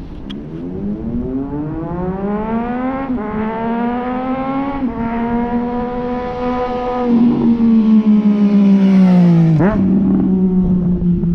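A 2018 Triumph Street Triple 765's inline-three engine, breathing through an unbaffled Toce Performance slip-on exhaust, accelerating hard. Its pitch climbs and drops at two upshifts and it grows louder as it approaches. It is really loud, peaking as it passes, and its pitch falls steeply as it goes by near the end.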